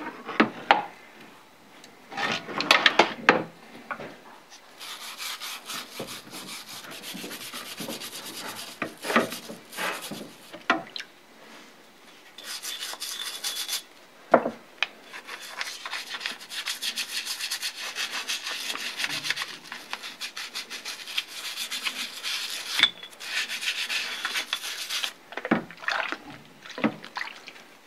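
Small brush scrubbing a cast metal part in a tub of foamy degreaser, in long runs of quick back-and-forth strokes with short pauses. A few sharp knocks of the part or tool against the tub.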